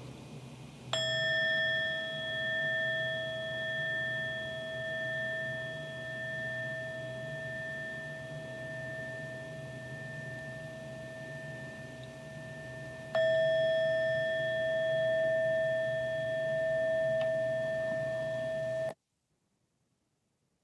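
Meditation bell struck twice, about twelve seconds apart, each stroke ringing on long and steady; the ringing cuts off suddenly near the end. It marks the close of the sitting meditation period.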